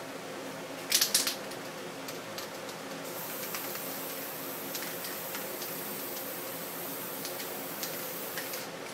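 Aerosol spray paint can hissing steadily as black paint is sprayed onto the canvas, starting about three seconds in and cutting off just before the end. A brief cluster of sharp clicks comes about a second in.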